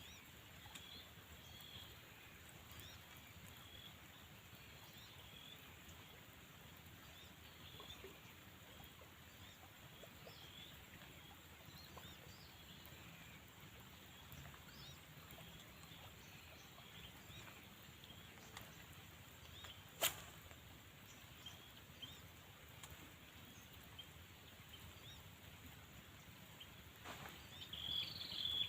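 Quiet outdoor ambience with faint, short high chirps repeating throughout, a single sharp click about twenty seconds in, and louder chirping near the end.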